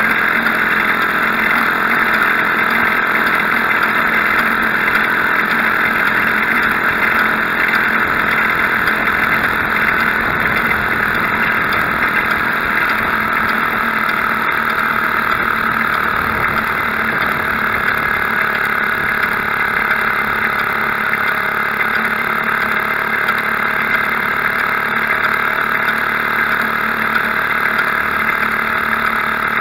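Maytag Model 72 twin-cylinder two-stroke washing-machine engine running steadily as it drives a homemade motor bicycle along the road.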